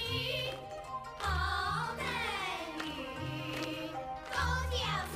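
Children singing a Chinese xige (opera-style song) over instrumental accompaniment with a bass line, the voices bending and wavering on held notes; the sung words name the Yangtze fish 'daoyu, shiyu, hetunyu'.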